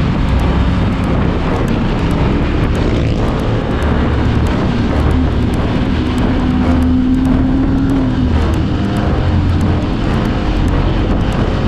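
Motorcycle engine running under way, with wind rushing over the microphone: a loud, steady drone. A steady tone sits on top of it for about two seconds near the middle.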